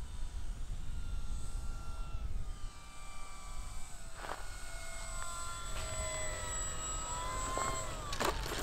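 Electric motor and propeller of a 1200 mm GeeBee RC model plane whining at low throttle on the landing approach, its pitch shifting and falling off. Wind rumbles on the microphone throughout. Near the end a few sharp knocks come as the plane touches down on the road.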